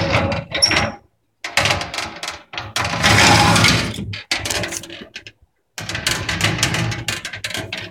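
Scraping and knocking as the glass door of a wooden cabinet is moved and something is put away inside, in three stretches with brief silences between.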